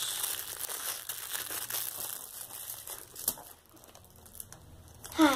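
Plastic packaging crinkling as it is handled, over roughly the first three seconds, with one sharp click about three seconds in; after that it goes quieter.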